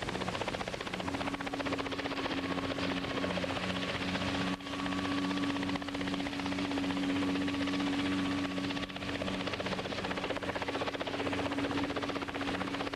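Light helicopter in flight: a steady engine and rotor drone with a fast, even chopping pulse, dipping for an instant twice.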